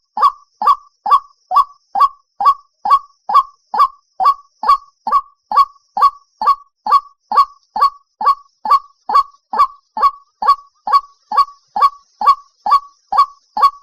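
White-breasted waterhen calling: one short note repeated over and over at an even pace, a little over two a second, without a break.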